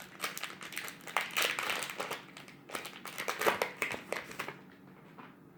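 Foil Pokémon booster pack wrapper being torn open and crinkled by hand: a dense run of sharp crackles that stops about four and a half seconds in.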